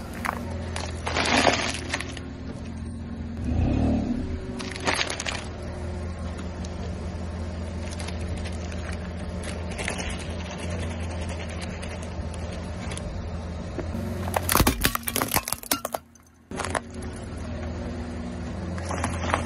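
Car engine idling steadily while objects are crushed under its tyre, with irregular crunches and cracks, the biggest burst of cracking a little after the middle.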